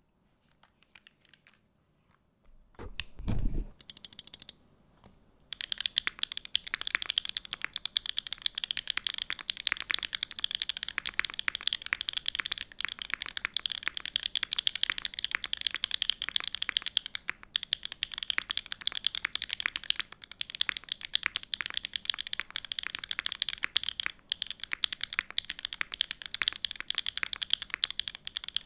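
Fast continuous typing on a TGR x GAF 910 custom mechanical keyboard with lubed RAMA Ducks switches in an aluminium plate: a dense run of keystrokes starts about five seconds in and goes on with a couple of brief pauses. Before that there are a few scattered clicks and a low thump about three seconds in.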